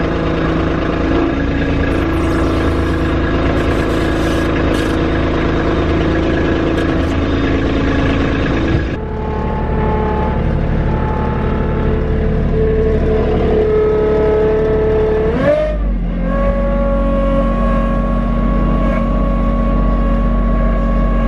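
Kubota B2650 tractor's three-cylinder diesel engine running steadily as the tractor drives along pulling a boat. The revs climb quickly about fifteen seconds in and then hold at a higher, steady pitch.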